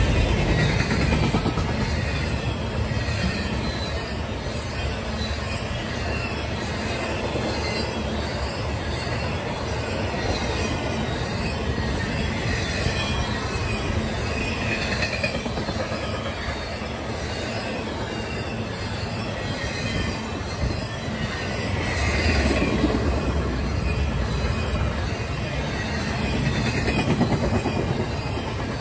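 Double-stack container and trailer cars of a CSX intermodal freight train rolling past at speed: a steady rumble of steel wheels on rail with faint, wavering wheel squeals. It swells louder about 22 seconds in and again near the end.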